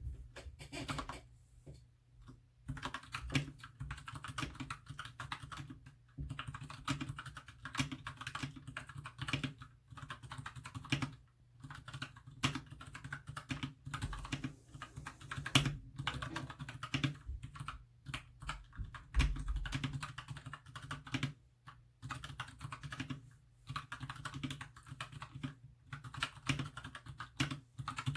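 Typing on a mechanical keyboard with blue switches, runs of quick keystrokes broken by short pauses.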